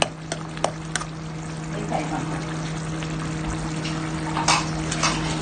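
Curry simmering and sizzling in a pan, with a metal ladle clicking against the pan three times in the first second. A steady low hum runs underneath.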